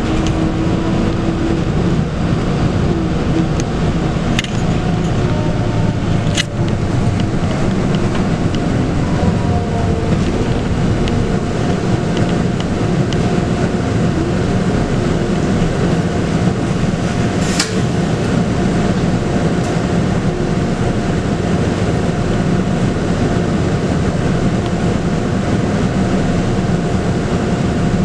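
Scania K280UB bus under way, heard from on board: its 9.3-litre five-cylinder Scania diesel runs steadily, with a faint steady whine on top. A few sharp clicks break in about four, six and seventeen seconds in.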